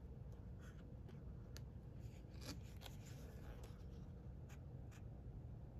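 Faint handling noise from a paper book held open: light rustles and soft clicks every second or so, over a low steady room hum.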